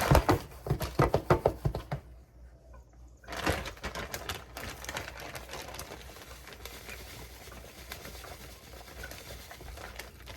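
Dry cornmeal being handled and poured into a dish: a run of sharp taps and knocks over the first two seconds, then after a short pause a long, fainter granular pattering of fine grains.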